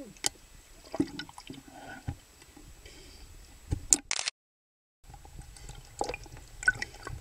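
Water sloshing and dripping with scattered small clicks and splashes, picked up by a camera at and below the sea surface. The sound cuts out completely for under a second about four seconds in.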